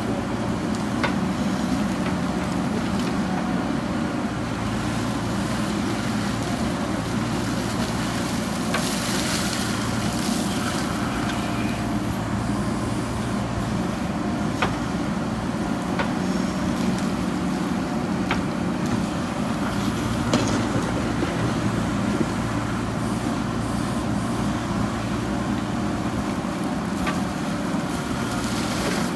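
A JCB backhoe loader's diesel engine runs steadily while digging, its note swelling and easing with the load, with a few sharp knocks scattered through.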